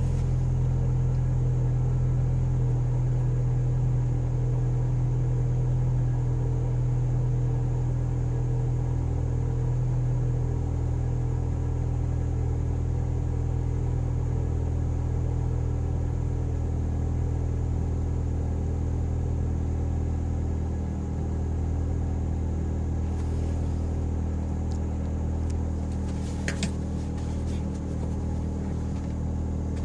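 2011 Mazda Miata (NC) 2.0-litre four-cylinder engine idling steadily shortly after a cold start, its idle settling lower partway through, with a brief click near the end. The owner suspects a vacuum leak.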